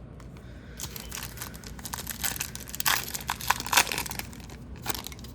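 Wrapper of an Upper Deck hockey card pack crinkling and crackling as it is torn open, starting about a second in.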